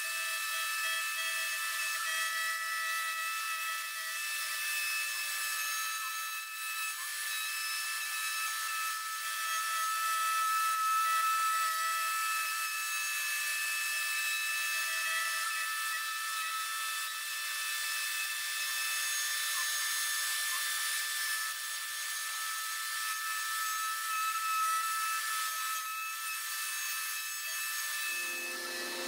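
Trim router on a Shapeoko XXL CNC cutting half-inch MDO plywood with a 1/8-inch single-flute bit, a steady high-pitched whine over the hiss of a wet vacuum sucking up the chips at the bit. A lower hum joins near the end.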